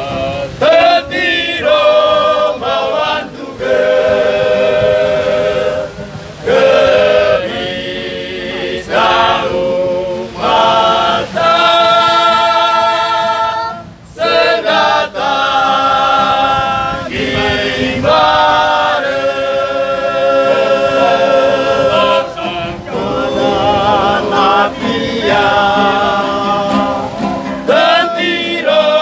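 A group of men singing a song together in harmony, in held notes and phrases broken by short pauses.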